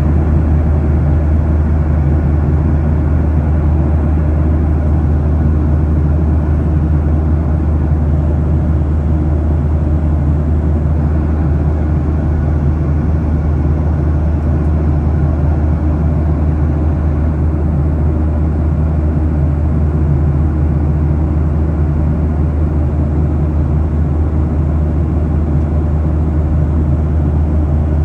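Steady low drone of an airliner in flight, engine and airflow noise heard from inside the passenger cabin.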